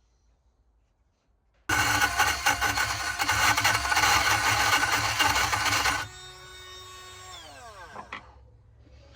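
Power drill driving a burr bit into a lock, running loud and steady for about four seconds, then released so the motor winds down with a falling whine. A sharp click right at the end.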